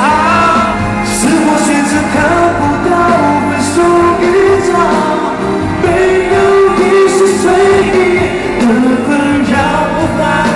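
Live Mandarin pop song: a male singer with band accompaniment.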